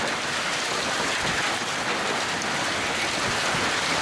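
Heavy desert monsoon rain pouring down steadily, a dense even hiss of rain striking the ground and surfaces.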